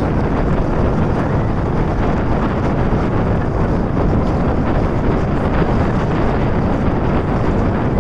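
Steady wind buffeting the microphone aboard a moving boat, with the low rush of the boat running across the lake.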